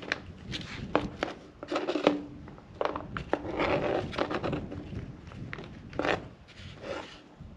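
Kitchen knife tapping and scraping minced onion across a cutting board: several sharp knocks, with stretches of scraping about three seconds in and again near the end.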